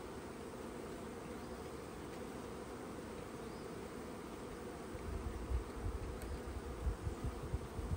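Honeybees from a freshly installed package buzzing steadily around the hive. Low rumbling bumps on the microphone join in about five seconds in.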